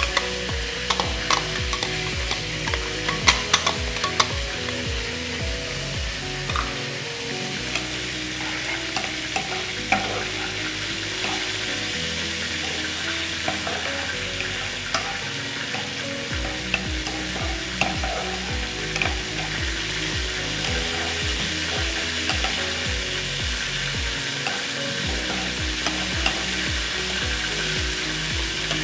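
Raw rice sizzling as it fries in hot oil with cumin seeds, stirred with a plastic spatula in the pan. Sharp ticks of grains landing in the oil in the first few seconds.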